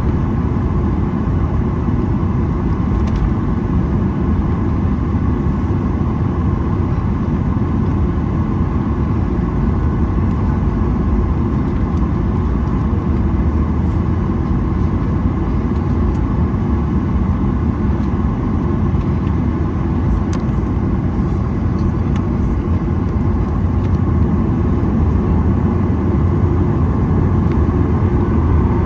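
Steady jet cabin noise inside a Boeing 737-900ER: its CFM56-7B engines and the airflow, a deep, even rumble that grows a little louder over the last few seconds.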